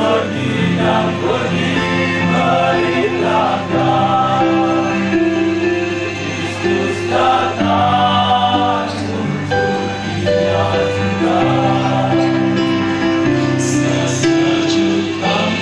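Male choir of seminarians singing in several parts, holding long chords that change from phrase to phrase.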